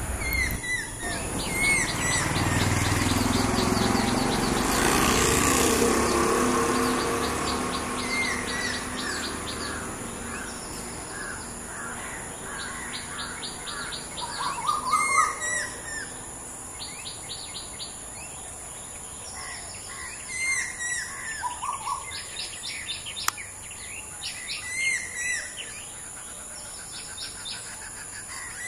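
Stork-billed kingfisher calling repeatedly, in series of short calls, mixed with other birds' chirps.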